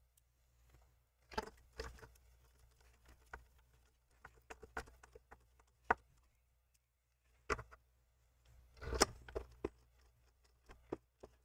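Scattered light clicks and knocks of plastic and metal parts of a Corsair iCUE H100i Elite liquid cooler being handled: fans, radiator, screws and the pump head with its cables. The loudest knock comes about nine seconds in.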